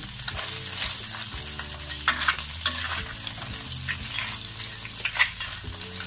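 A spatula stir-frying blue swimming crab pieces with onion and spring onion in a hot oiled pan: steady sizzling, with scrapes and knocks of the spatula against the pan, the sharpest about two seconds in and again near five seconds.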